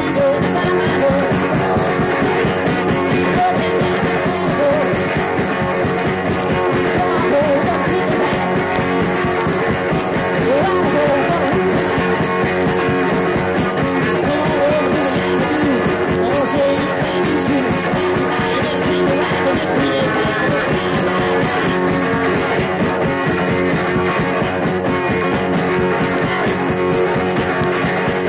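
Rock song played at a steady, even loudness, led by electric guitar.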